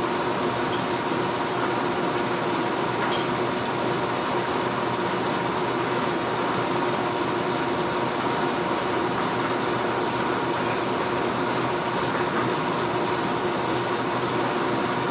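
A small motor running steadily: a constant mechanical drone with a fixed hum and a higher whine.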